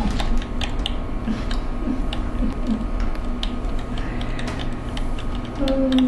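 Irregular light clicks of typing on a computer keyboard, over a steady electrical hum.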